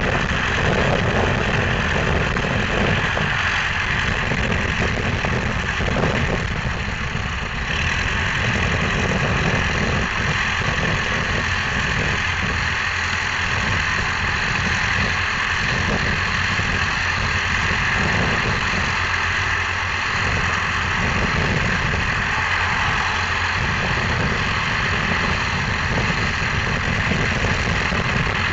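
Old farm tractor's engine running steadily under load as it pulls a plow through the field.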